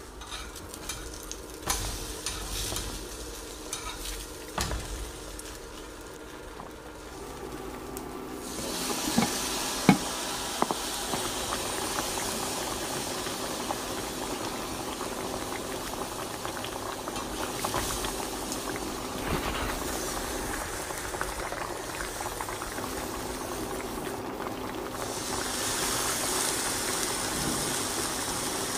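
Food frying in a hot pan: a few knocks of utensils on cookware, then from about eight seconds in a steady sizzling hiss that carries on, with a low steady hum underneath.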